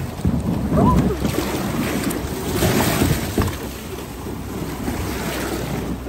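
Rushing, splashing water around a plastic sit-on-top kayak, with wind rumbling on the microphone.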